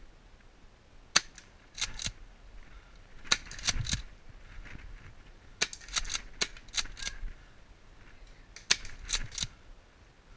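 Tokyo Marui M870 gas airsoft shotgun firing: four sharp shots, each followed within about a second by two or three quicker, quieter clacks.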